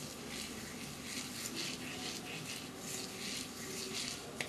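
Hands rubbing and smoothing a creamy hair mask down a section of coily hair: a soft, repeated swishing, about two to three strokes a second, with a small click near the end.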